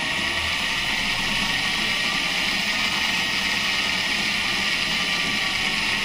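BV20 bench lathe running under a variable-frequency inverter, with a steady hissing whine from the motor and spindle drive. The speed is turned up, then eased back a little near the end.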